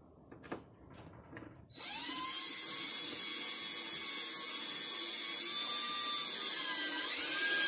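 Power drill driving a screw into a wooden board. A few light handling clicks, then a steady motor whine from about two seconds in that dips briefly near the end and rises in pitch as the drill speeds up.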